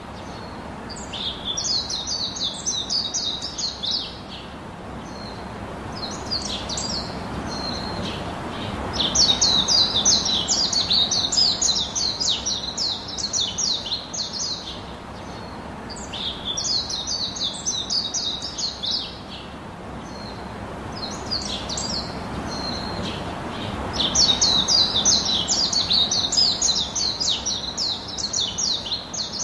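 Small birds twittering in fast runs of high chirps, coming in bursts of a few seconds with short pauses between, over a steady low background noise.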